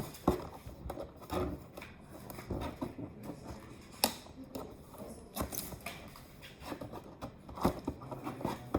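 Scissors cutting packaging tape on a toy box, with scattered sharp snips and clicks and rustling of the box and packaging.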